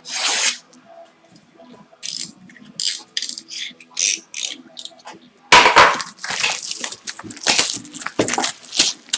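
Crinkling, scratchy tearing and rustling of a trading-card box and its packaging being handled and opened. The sound comes in short bursts, then runs denser and louder from about halfway through.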